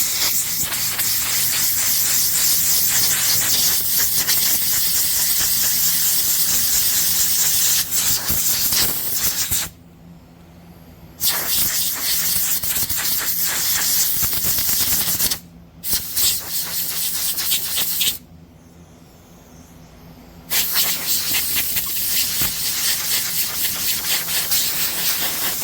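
Compressed-air blow gun hissing in four long blasts as it blows dust out of a generator's air filter, with short pauses between blasts.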